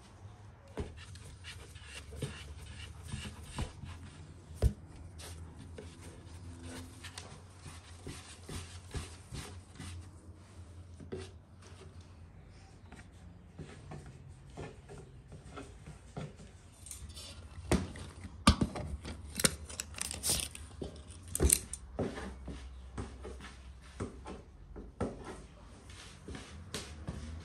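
Dough being cut with a metal scraper and rolled into balls by hand on a floured wooden board: scattered soft taps, pats and knocks, with a run of sharper knocks about two-thirds of the way through.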